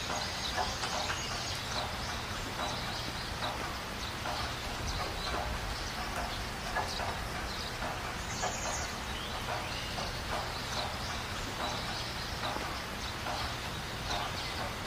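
Outdoor night ambience of animal calls: a steady low hum under irregular short clicks and high chirps, with a brief higher chirp about eight seconds in.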